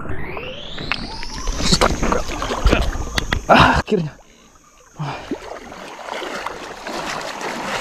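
Water noise and rod-and-reel handling knocks while fishing from the river, with a loud burst near four seconds in. A thin high whine rises in pitch over the first second and a half, then holds steady throughout.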